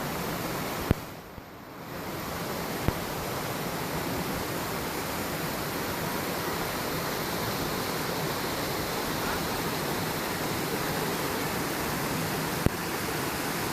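Helen Hunt Falls, a waterfall, rushing with a steady, even roar of falling water. Three brief sharp clicks break in, and the sound is briefly muffled a second or two in.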